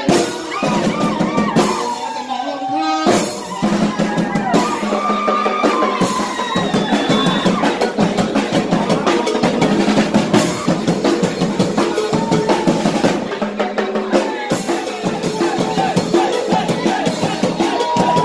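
Thai ta-tueng-mong percussion band playing: marching snare and bass drums beating a busy, steady rhythm, with a man singing over it through a microphone.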